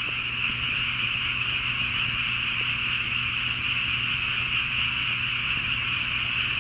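A dense, steady chorus of calling frogs, high and even with no breaks, over a faint low hum.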